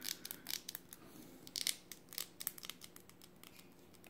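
Small hard-plastic clicks and creaks from a stuck arm being twisted and worked in the shoulder socket of a PVC figure. A quick run of clicks thins out after about two seconds, with a few more just after.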